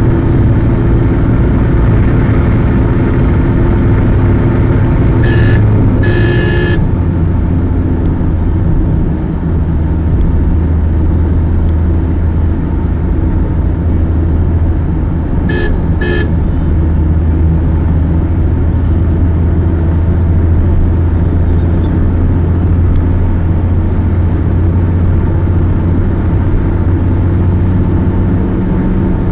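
Steady engine drone and road noise inside a Mitsubishi Lancer's cabin cruising at about 100 km/h. A car horn sounds about five seconds in, a short toot then a longer one, and gives two more short toots about halfway through.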